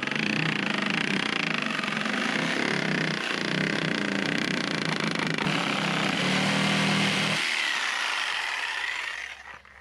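Power saw running steadily, cutting through a reclaimed pallet board along a drawn angled line, and stopping near the end.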